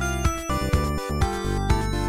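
Video-game-style music: a quick run of short pitched notes over a steady beat.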